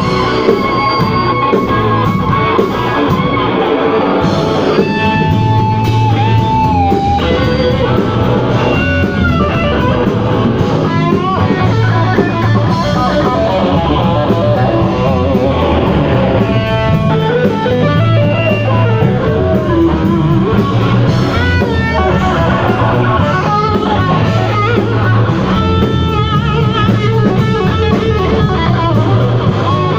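Instrumental music with no vocals: guitar lines with bent notes over drums and a pulsing bass.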